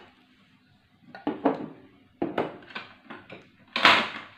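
Kitchen containers and utensils being handled and set down: a run of light knocks and clatters, with a louder, longer clatter near the end.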